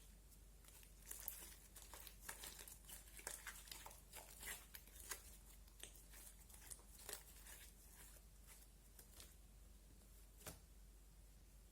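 Slime being handled: a quick run of soft sticky crackles and popping clicks, fading out with one last pop near the end.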